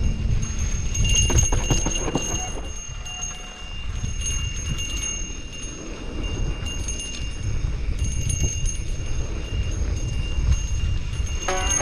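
Mountain bike riding down a dirt single-track: low wind rumble on the helmet or bike camera's microphone, with the bike rattling and clicking over rough ground, busiest a second or two in.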